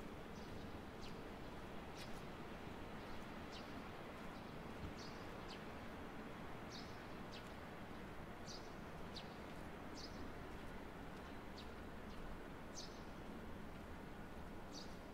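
Small birds chirping in short, high calls, roughly one a second at irregular intervals, over a steady low background hum.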